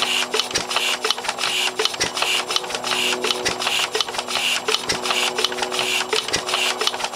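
Ruston Hornsby SPB 3 HP single-cylinder stationary engine running: a rapid, even mechanical clatter with a heavier knock about every second and a half.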